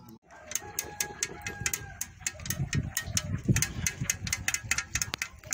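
Wood and charcoal fire crackling with rapid, irregular sharp snaps, over a low rumble from handling near the microphone.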